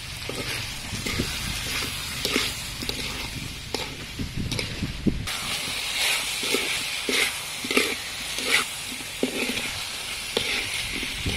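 Diced beef heart sizzling in a wok with a steady hiss, while a metal spatula stirs it and scrapes against the pan about twice a second.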